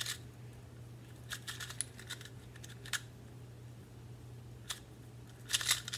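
A plastic YJ YuPo 2x2 speed cube being turned quickly in a solve, its layers clicking and clattering in scattered bursts, with a dense run of turns near the end. The cube is new out of the box and unlubricated, and it feels sandy when turned.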